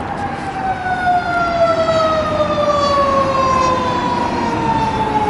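Emergency vehicle siren wailing: one long tone slowly falling in pitch, over the noise of road traffic.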